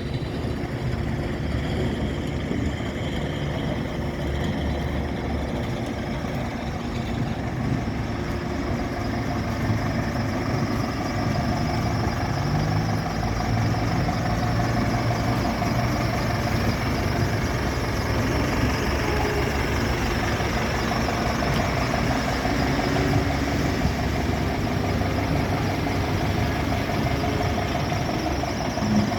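The 140 kW diesel engine of a Liebherr LH 35 M timber excavator running steadily, with a steady higher whine coming in a little past the middle.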